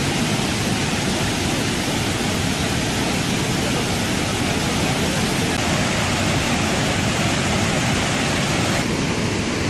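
Niagara Falls pouring, a steady, loud rushing roar of falling water without a break.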